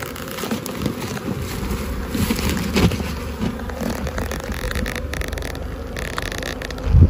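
Honeybees buzzing around their hives, a steady hum under scattered low thumps, the loudest thump near the end.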